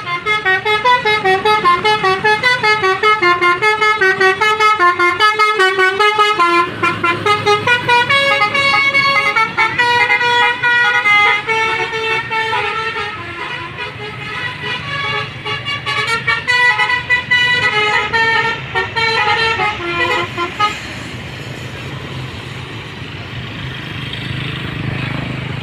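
A bus's basuri (telolet) multi-tone musical horn plays a fast melody of stepped notes for about twenty seconds and then stops. A low, steady hum of the bus's engine runs under it from about seven seconds in and is left alone near the end.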